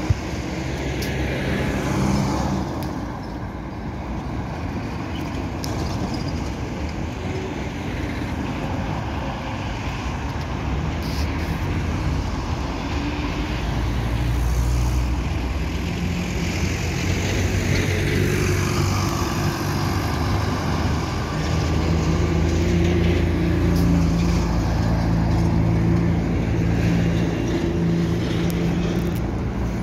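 Road traffic with cars and a van passing close, one with a falling pass-by sweep about two-thirds of the way through. A ZiU-10 articulated trolleybus draws up close near the end, and a steady low hum sets in about twenty seconds in.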